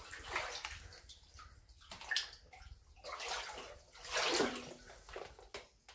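Shallow water on a flooded mine-tunnel floor sloshing and splashing as someone wades through it, in uneven surges about once a second that fade near the end.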